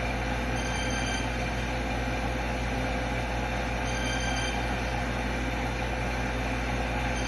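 Steady background hum and hiss with a faint constant tone, unchanging throughout, with no distinct events.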